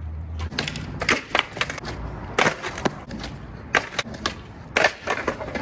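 Skateboard rolling, with a series of sharp clacks and slaps as the board pops and hits the ground during trick attempts: a few about a second in, then more spread out through the rest.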